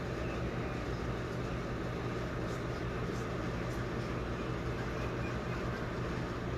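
Steady low machine hum over a constant hiss, like a running fan or household appliance, with a few faint brief rustles.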